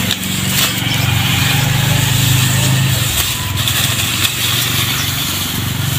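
A small engine running steadily, its drone dipping a little midway and picking up again near the end, with a few faint knocks.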